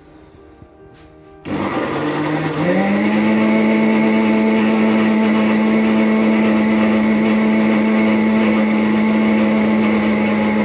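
Electric mixer grinder (mixie) motor running, blending coconut chutney in its steel jar. It switches on about a second and a half in, its whine rises in pitch over the next second as it spins up and then holds a steady hum, and it stops suddenly at the end.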